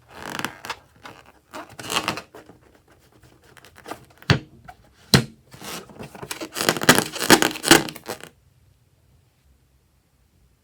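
Slime being squeezed and worked by hand: a string of irregular wet noises and sharp clicks for about eight seconds, which then stop.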